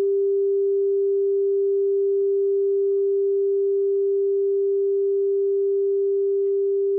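Nakamichi Dragon cassette deck's built-in calibration test-tone generator, putting out a single steady pure tone, used to set the recording level for a type 1 tape.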